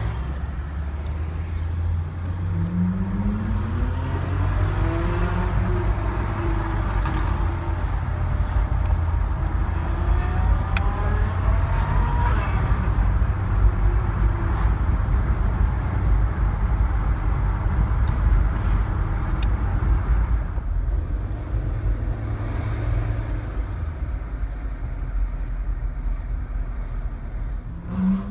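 Car engine and road rumble from a moving car in traffic. A few seconds in, an engine's pitch climbs steadily and then eases back down, and it rises briefly again around ten to twelve seconds in.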